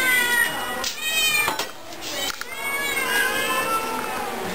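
Several domestic cats meowing over one another, a run of long, drawn-out meows, as the hungry cats beg for food at feeding time.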